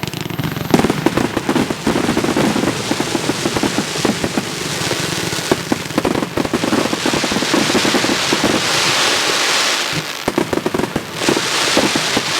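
Fireworks display: a dense, loud barrage of small aerial shells going off, rapid overlapping bangs and crackles with hardly a gap.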